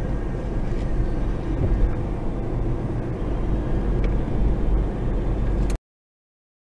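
Steady road and engine rumble heard from inside a moving car's cabin. It cuts off suddenly to dead silence near the end.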